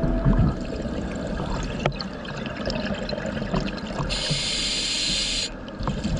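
Underwater sound of a scuba diver breathing through a regulator: bubbling with scattered clicks, and a steady hiss of about a second and a half a bit past halfway.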